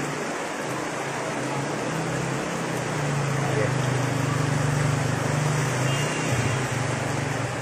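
Floodwater rushing and churning across a street, with a motorcycle engine running as it wades through the water, getting louder about three seconds in and easing off near the end.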